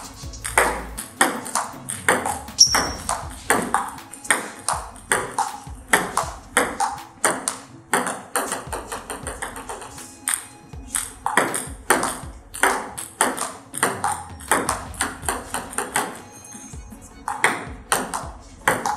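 Table tennis rally: the ball clicking off the rubber paddles and the tabletop in a quick, steady back-and-forth, two or three clicks a second, with a short lull near the end.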